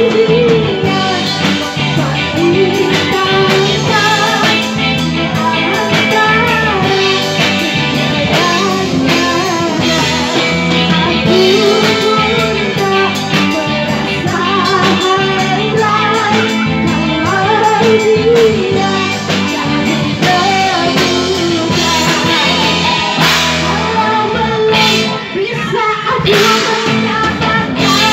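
Live band music: a singer's voice over guitar and a drum kit, playing continuously.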